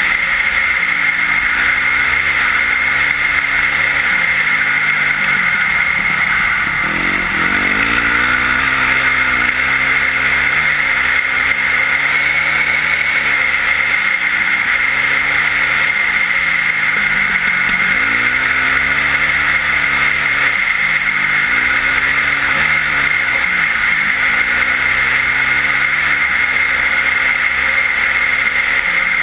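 Yamaha WR450F's single-cylinder four-stroke engine with an Akrapovic exhaust, under way, its revs repeatedly climbing and dropping as the rider works the throttle. A steady hiss runs underneath.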